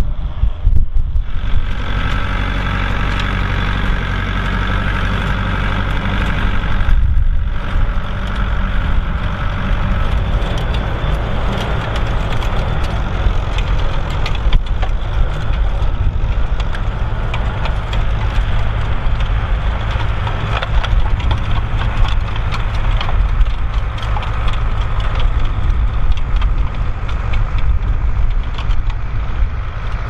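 Tractor engine running steadily under load in the field. About seven seconds in, the sound changes to a Fiatagri tractor driving a manure spreader, its rear beaters flinging manure with a dense, continuous clattering over the engine.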